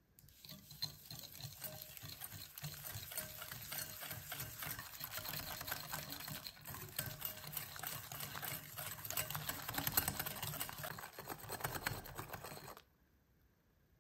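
Whisking in a mixing bowl: a dense, rapid ticking and scraping that runs steadily and cuts off suddenly near the end.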